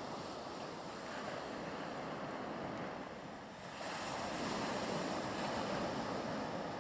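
Sea waves washing against a stone shoreline, with wind. The wash grows louder about four seconds in.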